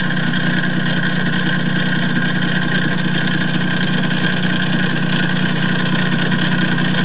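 Westerbeke 30C marine diesel running steadily, with vibration and rattling at the rear of its PRM-80 transmission. The rattle is the sign of the engine being out of alignment with the sonic drive, by about 30 thousandths in the vertical plane.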